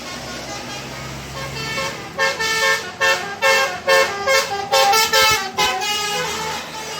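Bus "telolet" horn: a multi-tone horn tooting a quick run of short notes at changing pitches, from about two seconds in until about six seconds, over steady traffic and engine noise.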